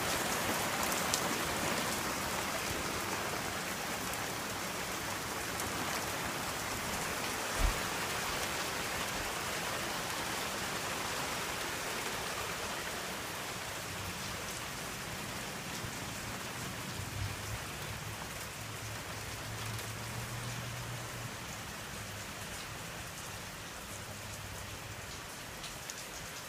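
Heavy rain from a thunderstorm falling steadily, easing slightly toward the end, with one brief low thump about a third of the way in.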